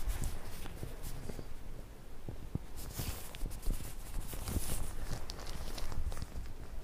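Close-up handling sounds of a squishy brain model stuck with acupuncture pins: soft irregular taps, scratches and crinkly rustles from a thin plastic glove working over it.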